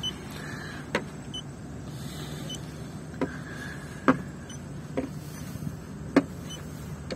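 Light clicks of a paint thickness gauge's probe being set against the car's body panels while the paint coating is measured, five taps at uneven intervals over a steady low hum.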